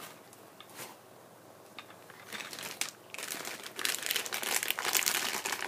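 Plastic packaging bag crinkling as it is handled. It is quiet at first, with a few light clicks, then builds about halfway through into loud, continuous crinkling.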